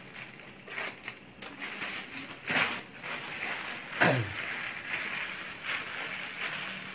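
Clear plastic sheet crinkling and rustling as it is handled over a woven bamboo tray, with louder rustles about two and a half and four seconds in.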